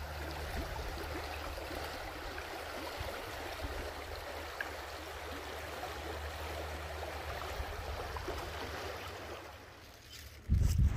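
Shallow woodland stream running over stones, a steady rush of water with a low rumble underneath. The water sound fades shortly before the end, and a brief loud low rumble follows.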